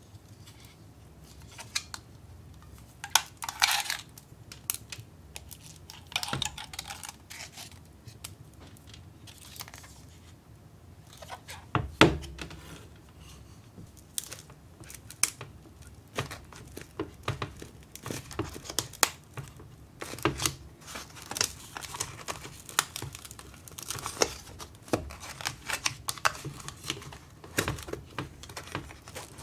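Hands handling a plastic ice-bottle mold: rubber bands pulled off, hard plastic parts clicking, scraping and rustling, with one sharp knock about 12 seconds in. Dense crackling handling noise fills the latter part.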